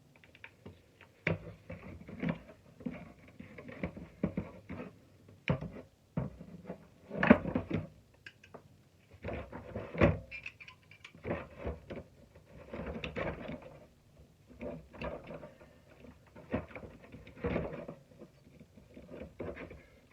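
Shop vacuum's plastic housing and motor parts being handled and pulled apart by hand: irregular clicks, knocks and rattles, with two sharper knocks about seven and ten seconds in.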